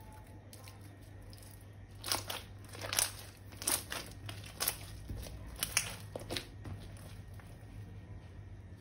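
Crunchy crackling from slime being squeezed and worked by hand, in a run of short crackly bursts between about two and six and a half seconds in, over a low steady hum.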